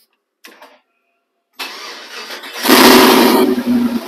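LS-swapped squarebody Chevy truck's V8 being started: the starter cranks for about a second, then the engine catches with a loud flare of revs and eases back into a steady idle.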